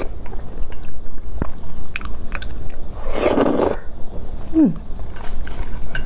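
Close-up eating sounds: noodles slurped off chopsticks, with one long loud slurp about three seconds in, and chewing and small clicks of chopsticks and mouth between. A short falling tone comes a little after the slurp.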